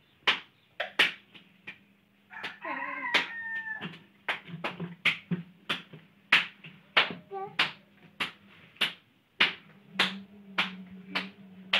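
A rooster crows once, about two and a half seconds in, over a run of sharp knocks or slaps at roughly one or two a second and a low steady hum.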